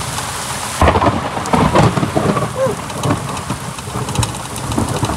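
Torrential thunderstorm rain, with drops striking the microphone directly in loud, irregular knocks and clicks. About a second in, the sound suddenly turns muffled.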